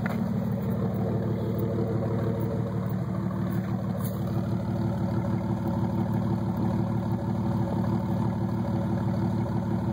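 Jeep Wrangler 4.0-litre straight-six idling steadily through a straight-piped exhaust, its muffler cut off and replaced with 2¼-inch pipe, with the catalytic converter, resonator and stock manifolds kept.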